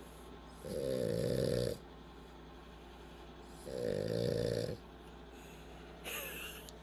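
Sleeping dog snoring: two long, rasping snores, each about a second long and roughly three seconds apart.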